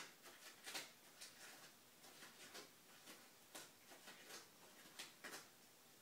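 A cat making faint, irregular clicking and scraping noises, roughly two a second, with no meowing.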